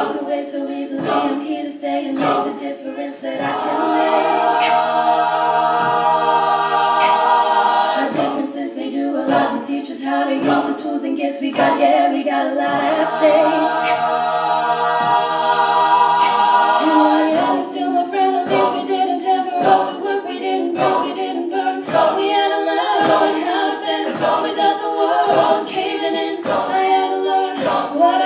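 All-female a cappella group singing sustained chords in close harmony, voices only, with a regular beat marked under them.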